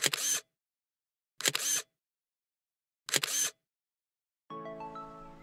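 Camera shutter sound effect, three short clicks about a second and a half apart with dead silence between them. Music starts near the end.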